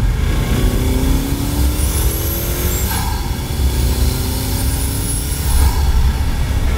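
Car engine revving in repeated rising passes about every three seconds, each starting with a sharp hit, with a high whistle climbing in pitch over the revs.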